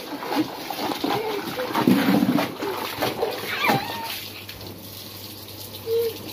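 Water splashing and sloshing in a tub that holds a soaked blanket as a child shifts around sitting in it. The splashing is busiest for about four seconds, then dies down.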